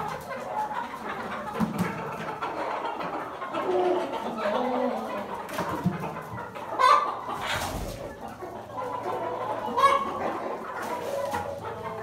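A flock of Kadaknath chickens clucking on and off in short calls, with a couple of louder calls about seven and ten seconds in.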